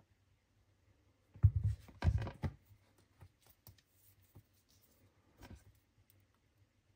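Things handled on a hard surface: a couple of dull knocks with rustling about a second and a half in, then scattered light clicks and taps.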